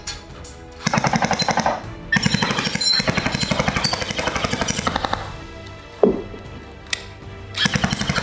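Tokyo Marui H&K USP automatic electric airsoft pistol firing on full auto in three rapid bursts, with a short pause between the first two and a longer one before the last.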